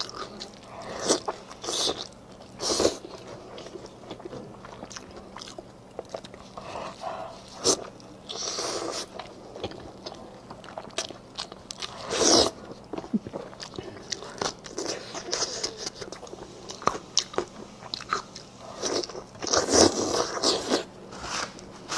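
Close-miked eating: biting and chewing saucy braised meat off the bone, with irregular small crunches and clicks. Louder bites come about 3 s, 12 s and 20 s in.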